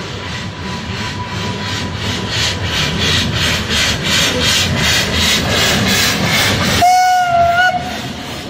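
Puffing Billy narrow-gauge steam locomotive working across a wooden trestle bridge, its exhaust chuffing in a steady rhythm that grows louder as it approaches. About seven seconds in it sounds one short steam whistle blast, lasting about a second.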